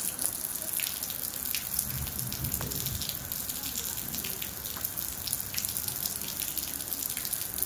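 Steady rain falling, a continuous hiss with frequent sharp ticks of nearby drops.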